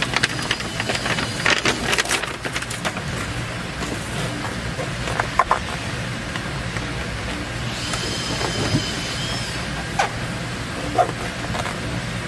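Paper release liner peeling off a Dynamat sound-deadening sheet, with dense crinkling and tearing over the first few seconds. Afterward the foil-faced sheet crackles now and then as it is laid down and pressed onto the floor pan, over a steady low hum.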